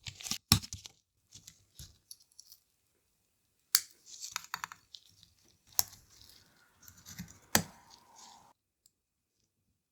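Plastic parts of a Nintendo DSi XL's replacement shell and small tools being handled during assembly: several sharp clicks with light scraping and rustling between them, stopping near the end.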